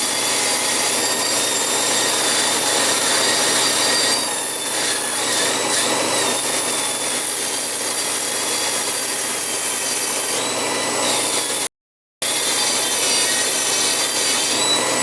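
Jet JAT-411 air-powered right-angle micro die grinder running at full speed with its bit cutting into chrome-coated aluminium: a steady high whine over air hiss and grinding, the whine's pitch dipping a little now and then as the bit takes load. The sound cuts out for about half a second near twelve seconds in.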